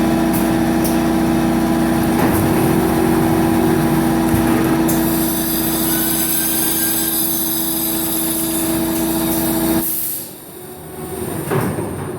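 Automatic film slitting machine running with a steady motor hum and a strong low tone, which stops abruptly about ten seconds in. A brief noise follows near the end.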